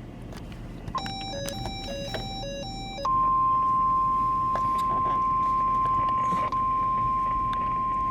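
Weather radio alert: a quick run of stepped electronic beeps, then the steady 1050 Hz warning alarm tone starts suddenly about three seconds in and holds. This tone comes just before a National Weather Service warning is read. A low vehicle rumble runs underneath.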